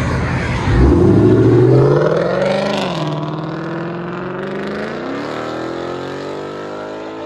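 Ford Mustang GT's 5.0-litre Coyote V8, straight-piped with an X-pipe, revved from idle. About a second in, a quick rev climbs in pitch and drops back. A slower rise and fall in engine pitch follows.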